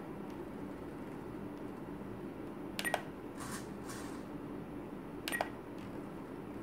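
Sharp clicks, each with a short beep, from a Spektrum DX9 radio transmitter's controls, at the start and again about three and five and a half seconds in. Each is followed within about half a second by a brief whirr of a small RC servo swinging its arm. A steady low hum runs under it all.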